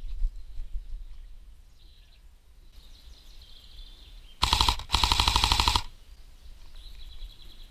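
Airsoft rifle firing on full auto: a short burst about four seconds in, then a longer burst of about a second with around a dozen rapid, evenly spaced shots.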